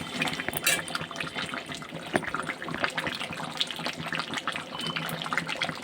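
Thick chicken curry sizzling and crackling in a pan as it is stirred, with butter just added; a spoon scrapes and knocks against the pan now and then.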